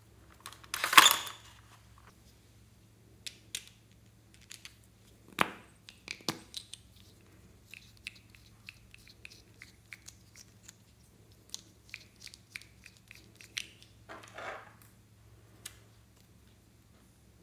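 Scattered small plastic clicks and taps as a toy makeup case and lip balm tubes are handled and opened, with a short scraping sound about a second in and a longer scrape near the end as lip balm is spread out over the slime.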